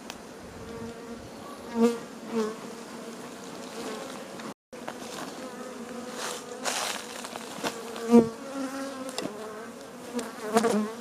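Honey bees from an agitated, very active hive buzzing in a steady hum. Several louder buzzes come as single bees fly close past, about two seconds in, around eight seconds and near the end.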